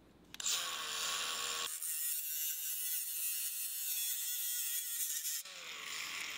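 Snap-on cordless rotary tool with a cut-off wheel spinning up about half a second in, then grinding through a steel stud that is too long, with a high-pitched hiss and whine, and winding down with a falling whine near the end.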